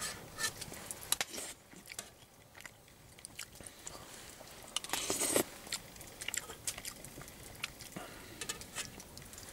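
A person eating: chewing, with scattered small clicks and scrapes of a spoon on a plate, and a louder rustling burst about five seconds in.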